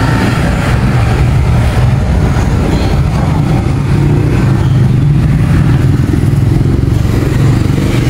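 An engine idling steadily, a constant low hum that does not rise or fall.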